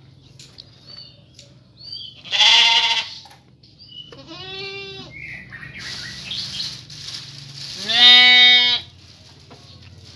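Sheep bleating at a feed trough: a loud wavering bleat about two seconds in, a softer higher one about four seconds in, and another loud bleat about eight seconds in, with quiet rustling from the feeding in between.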